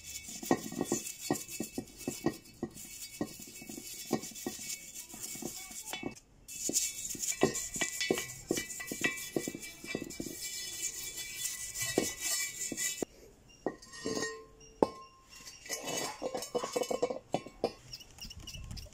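A small stiff brush scrubbing a metal alloy wheel, with the bristles rasping and the brush clinking against the rim in quick, irregular knocks.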